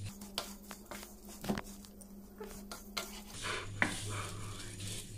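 Wooden spatula stirring broken vermicelli in a pan of ghee: scattered light clicks and scrapes as the dry strands are turned and toasted.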